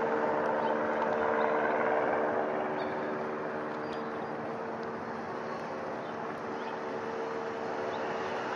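Departing light aircraft droning overhead: a steady engine drone with several held tones, easing off over the first few seconds as it passes.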